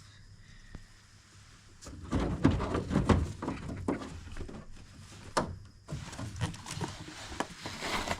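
A run of knocks, clicks and rattles, as of hard parts being handled, starting about two seconds in.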